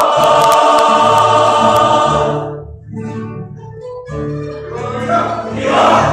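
Song music: voices hold a full chord for about two and a half seconds, then it drops to a quieter instrumental passage of plucked guitar notes, swelling again near the end.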